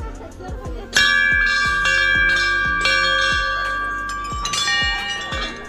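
Hanging brass temple bells rung by hand: several bells are struck about a second in and ring on together in several overlapping tones, then are struck again near the end. Background music with a steady beat runs underneath.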